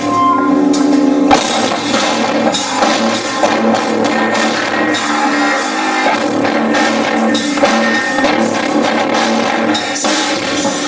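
Live industrial rock band playing loud, with pounding drums, distorted guitar and synthesizer, recorded from the crowd.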